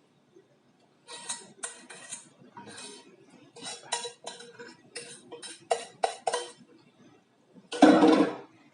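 Metal cutlery clinking and scraping against a plate in a run of short, quick strokes while noodles are eaten, followed by one louder, longer burst of noise near the end.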